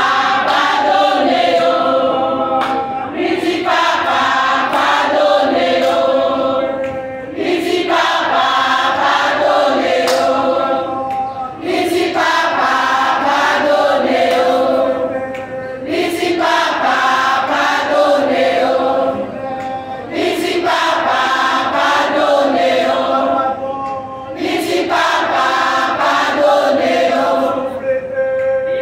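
Women's church choir singing a Haitian Creole hymn together, in phrases of about four seconds with brief breaks for breath between them.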